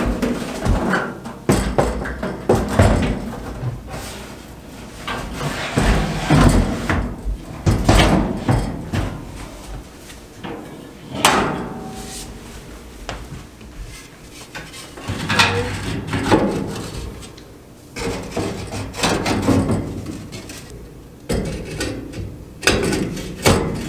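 Irregular knocks, clunks and scrapes as a metal fireplace firebox is handled and fitted into its wooden mantel; near the end, artificial logs are set down on the burner grate.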